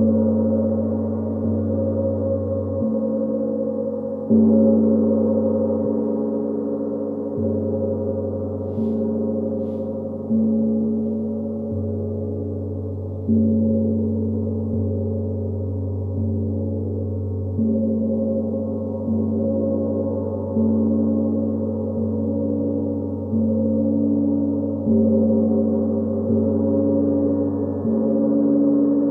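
A gong struck steadily about every second and a half, each low, ringing stroke overlapping the last. A few strokes, about four and thirteen seconds in, land harder than the rest.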